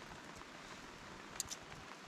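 Faint, steady rain falling, with a couple of sharp clicks about one and a half seconds in.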